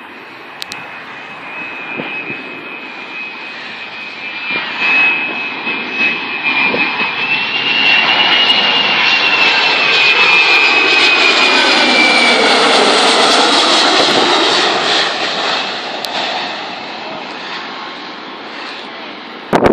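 Jet airliner passing low on its landing approach: a steady rush of engine noise with a high whine grows louder, peaks around the middle, then fades, its pitch dropping as it goes past.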